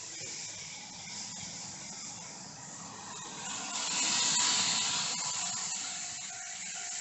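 An N-gauge model train running on the track: a small electric motor whirring, with a faint steady whine and light clicks from the wheels. It grows louder about four seconds in.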